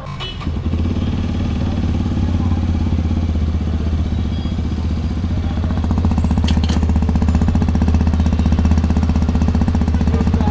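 Hero XPulse 210's single-cylinder engine running at a steady, even pace, with a brief click about six and a half seconds in.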